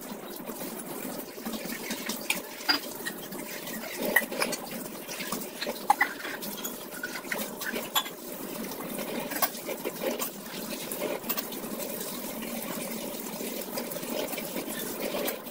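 Dishes being washed under a running kitchen tap: a steady rush of water with frequent clinks and knocks of metal pots and utensils against each other and the sink.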